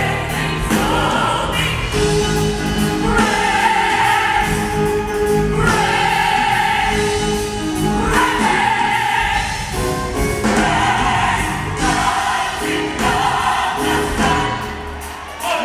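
Gospel choir of men's and women's voices singing live, holding sustained chords a second or two at a time.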